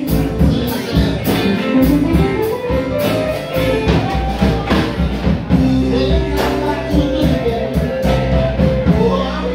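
Live rock band playing: electric guitar, electric bass and drum kit, heard from among the tables in the room.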